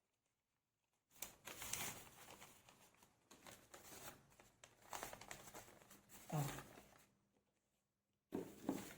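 Pattern paper being handled: faint, irregular rustling and crinkling as a piece of the paper draft is removed, starting about a second in and coming in short bursts.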